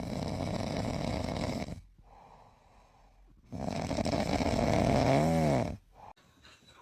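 A dog snoring: two long, rattling snores, the second louder and ending in a brief whine that rises and falls.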